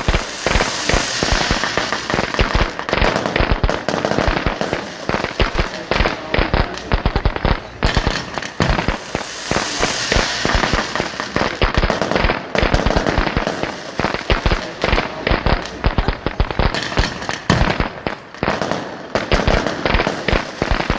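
Fireworks display: rapid, overlapping bangs and crackling without a break over a constant hiss, with stronger hissing spells near the start and about halfway through.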